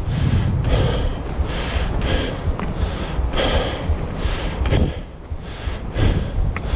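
A hiker breathing hard while climbing a trail, a steady rhythm of loud breaths a little more than one a second, over low wind rumble on the microphone.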